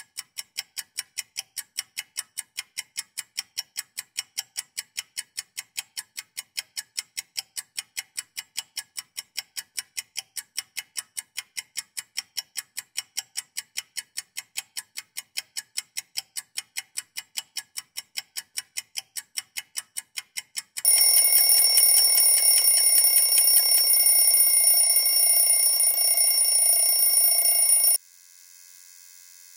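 A clock ticking evenly and fast, then a loud alarm that rings steadily for about seven seconds and cuts off suddenly when it is switched off on a mobile phone, leaving a faint hum.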